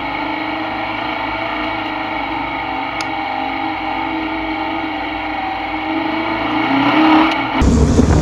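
Air-cooled VW Baja Bug engine running steadily, then revving up near the end before the sound abruptly changes to a much louder, rougher engine-and-wind noise.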